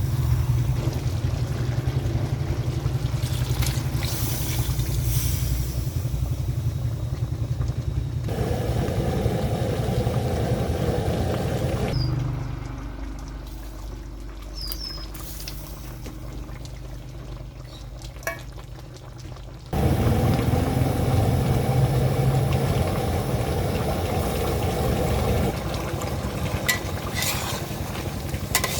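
Food frying in a pan over a steady low hum, probably with stirring. The sound drops much quieter for several seconds midway, then comes back.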